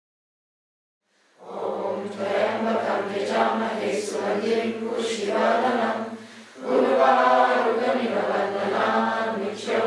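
Silence for about a second, then a group of voices chanting together for the havan fire ceremony, with a short break about six and a half seconds in before the chant resumes.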